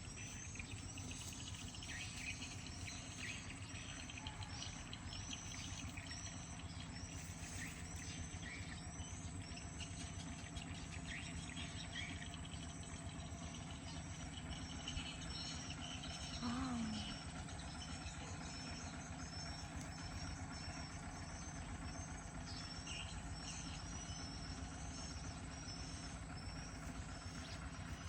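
Small birds chirping repeatedly in short, high notes over a steady low rushing background. A brief low call sounds once about two-thirds of the way through.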